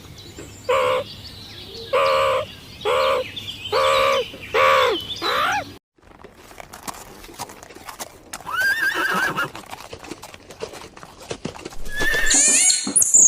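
An animal calling in a series of six short pitched calls, about one a second, stopping abruptly about six seconds in. After that come scattered fainter calls and, near the end, high-pitched chirping calls.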